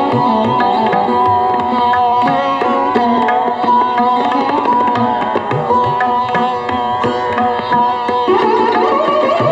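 Indian classical instrumental music, a plucked sitar-like string instrument over tabla drumming, played continuously.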